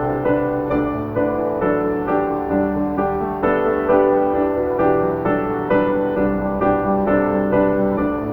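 Slow, gentle piano music, notes struck several times a second over sustained chords.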